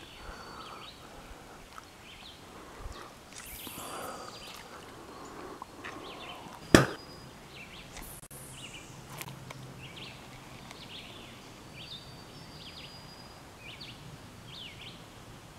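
Small birds chirping repeatedly, with two quick swishes of a fishing rod being cast. One sharp click about seven seconds in is the loudest sound.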